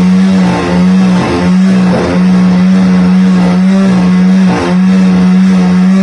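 Large band sawmill running, sawing a big walnut log as the carriage moves it through the blade: a loud, steady hum that dips briefly every second or so.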